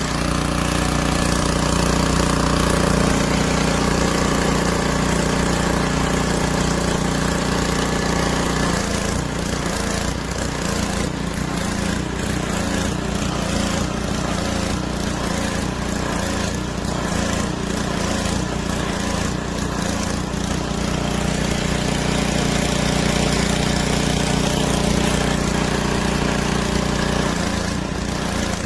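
Small gasoline engine of a pressure washer running steadily at a constant speed. Its tone shifts about nine seconds in.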